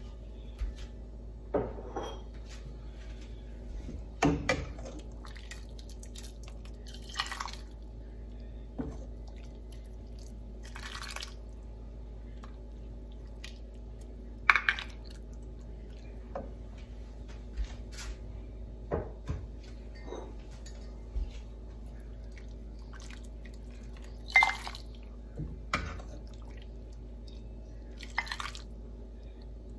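Soup being ladled from a stainless steel pot into ceramic crock bowls: liquid splashing and dripping, with scattered sharp clinks of the metal ladle against pot and bowl, a few of them louder, over a steady low hum.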